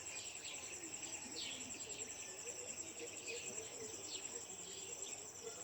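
Dawn chorus: a steady high insect trill like crickets, with frequent short falling bird chirps over it, about two a second.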